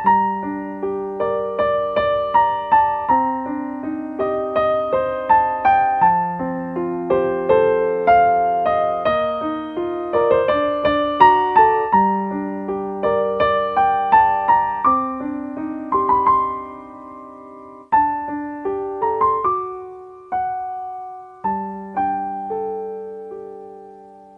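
Calm solo piano music: a slow melody of single struck notes that ring out and fade over held low notes, with a short lull about three-quarters of the way through before a new phrase begins.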